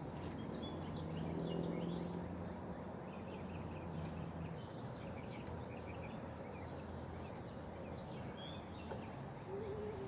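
Birds chirping in short repeated calls over a low, steady background hum.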